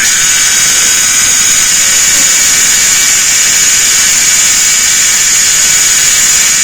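Cicadas singing: a loud, unbroken, high-pitched buzzing drone that holds steady without a pause.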